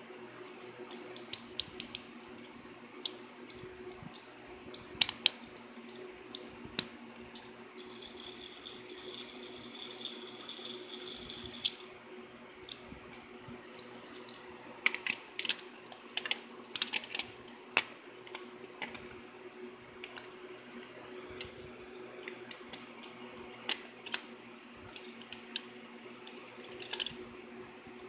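Clicks and clatter of AAA batteries being fitted into a plastic toy train engine's battery compartment and handled, over a steady low hum. A high steady whine runs for about four seconds in the first half and stops with a click.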